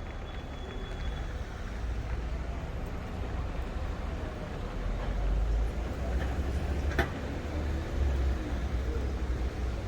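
City street ambience with a steady low rumble of road traffic. There is a single sharp click about seven seconds in.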